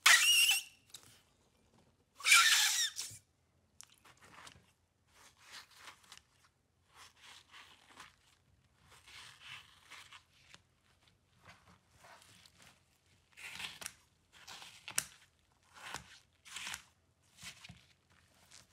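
Pink slime squeezed between two hands, giving two loud wet squelching squeaks in the first three seconds. After that, scissors cut through a slime-coated block, with a short crunchy snip about once a second.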